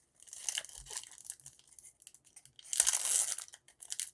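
Foil Pokémon card booster pack crinkling in the hands, then torn open with a louder ripping burst about three seconds in.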